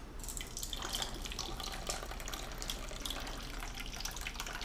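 Water running from a kitchen tap into an ice cube tray, a steady splashing hiss that starts just after the opening.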